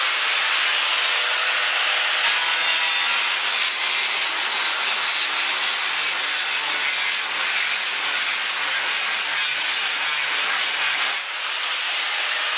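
Angle grinder with an A-type offset grinding wheel grinding the surface of a steel plate: a steady, harsh grinding noise, with a brief dip about 11 seconds in.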